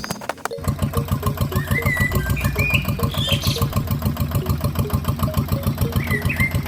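Small engine starting about half a second in, then idling with an even beat of about ten pulses a second.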